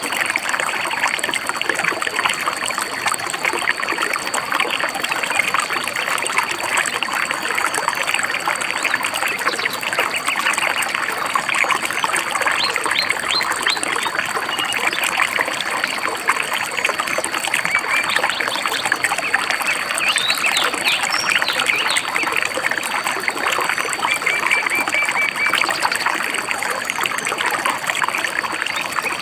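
Shallow stream babbling and trickling steadily, with small birds chirping over the water: bursts of quick chirps about halfway through and a short trill near the end.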